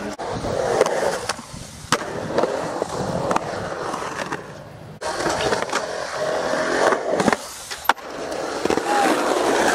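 Skateboard wheels rolling over concrete, broken by several sharp clacks of the board hitting the ground and obstacles.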